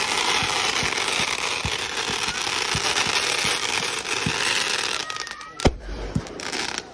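A consumer firework spraying sparks with a steady loud hiss and scattered small crackling pops, then two sharp bangs near the end as coloured stars burst overhead.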